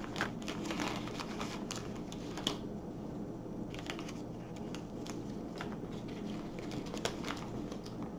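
Scattered light clicks and plastic rustling of a diamond-painting tool kit being packed: a plastic drill pen and placer tips tapping and a clear plastic pouch being handled.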